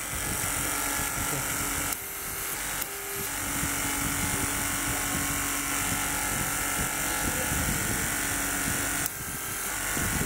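Electric hydraulic torque-wrench pump running with a steady motor hum while its pressure is being set to 75 bar. The hum shifts in tone and level about two seconds in, again about a second later, and near the end.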